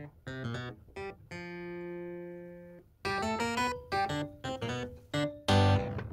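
Background music of plucked string notes, with a long held chord in the middle and a loud chord near the end.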